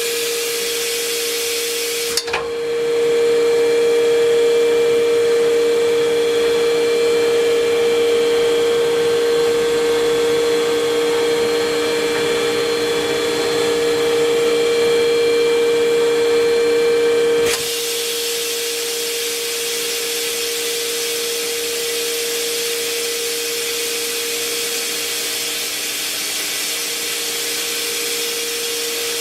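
Spinner PD 32 S CNC lathe running with a steady hum and whine under a hiss. About two seconds in it abruptly turns louder, with several higher steady whining tones, and about seventeen seconds in it drops back just as suddenly.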